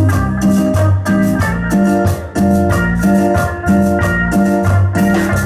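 Band playing an instrumental passage: electric guitar lead over bass, with a steady percussion beat of about three to four strokes a second.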